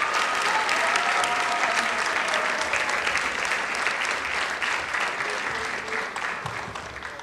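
Audience applauding, with a long cheer over it in the first two seconds; the clapping fades out near the end.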